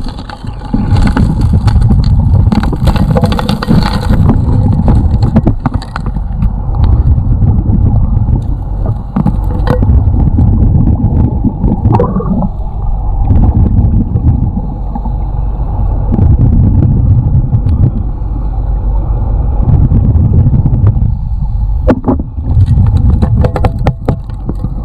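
Gas-powered gold suction dredge working, heard underwater: a loud, steady low drone of the dredge's engine and pump, with gravel and stones clicking and knocking as they are sucked into the nozzle and shifted by hand.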